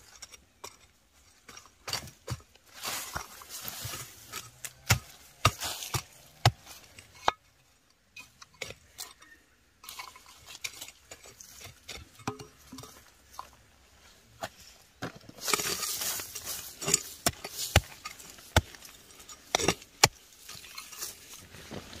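Kitchen utensils and cookware being handled: scattered sharp clinks and knocks, with two stretches of denser scraping, about three seconds in and again around the middle.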